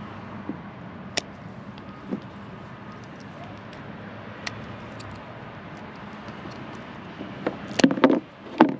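Wire strippers cutting through the wires of a truck camper's electrical connector: a few small clicks, then several louder, sharp snips close together near the end, over a steady background rumble.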